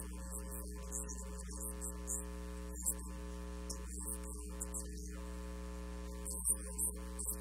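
Steady electrical mains hum, a low buzz with a ladder of overtones, unchanging throughout, with brief faint hissy flecks scattered over it.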